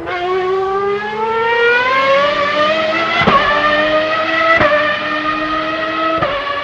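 Race car engine accelerating hard, its pitch climbing steadily, broken by three quick gear changes: one about three seconds in, one about a second and a half later, and one just after six seconds. Each change is a brief break with a small drop in pitch.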